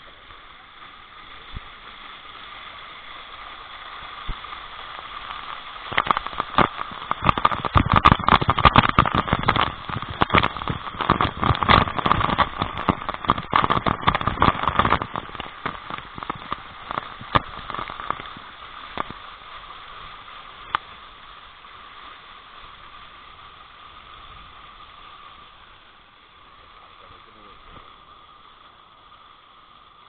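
Waterfall's rushing water, swelling over the first few seconds, with a dense run of crackling pops and knocks from about six to fifteen seconds in, then fading back to a steady rush.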